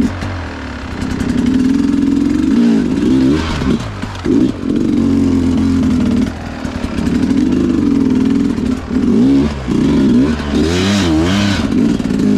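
Sherco two-stroke dirt bike engine, fitted with a Smart Carb, revving up and down over and over as it is feathered through rough ground, with a few brief drops in revs.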